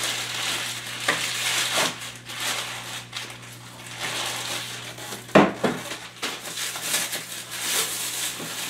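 A clear plastic protective bag crinkling and rustling as it is pulled off a boxed appliance, with a sharp knock about five seconds in.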